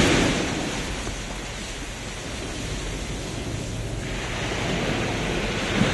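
Ocean surf washing ashore: a steady rush of waves that eases after the first second and builds again toward the end.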